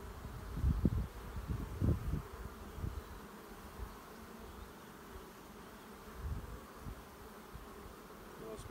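Honey bees buzzing around an open hive while a frame of brood and bees is held out of the box, a steady hum. A few low rumbles come in the first three seconds.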